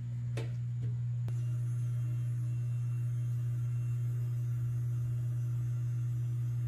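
A battery-powered handheld bubble blower's small motor running with a steady low hum as it blows bubbles, with a click about a second in.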